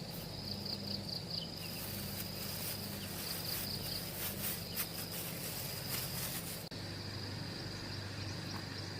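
Insects, likely crickets, trilling steadily at a high pitch over a low steady hum, with a run of short rustles and scrapes from about two to seven seconds in.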